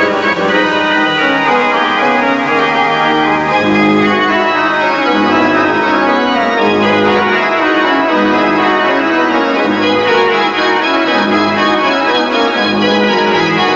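Organ music: full, sustained chords over a bass line that moves note by note.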